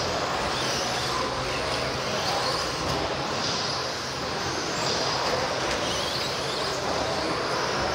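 Electric 1/10-scale stadium trucks with 13.5-turn brushless motors racing on carpet: high motor whines rise and fall as the trucks accelerate and pass, over the steady noise of a large hall.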